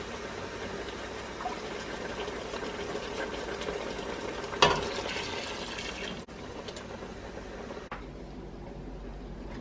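Water running, a steady splashing hiss, with one sharp knock about halfway through; it drops quieter abruptly near the end.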